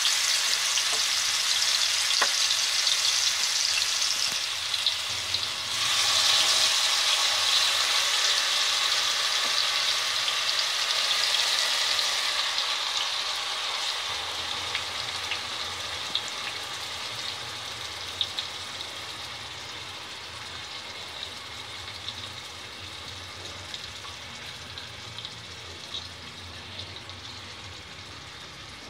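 Marinated chicken pieces sizzling in hot ghee and vanaspati in a wok as they are dropped in by hand. The sizzle swells about six seconds in, then gradually dies down, with scattered pops of spattering fat.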